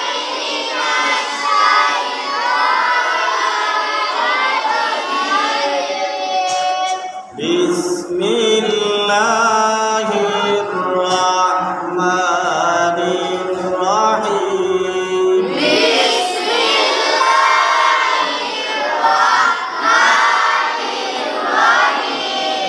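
A man reciting the Quran in Arabic in the melodic tilawat style: long held notes that glide up and down, with a brief breath pause about seven seconds in.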